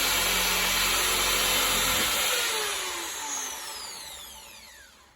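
Handheld power tool with an abrasive attachment running steadily while cleaning old surface material off a part. About two seconds in it is switched off and spins down, with a falling whine that fades away over the next few seconds.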